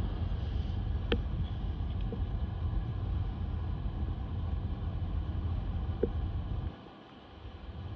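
Low, steady rumble of street traffic and wind on the microphone. There are two faint ticks, about a second in and about six seconds in. The rumble drops away for about a second near the end.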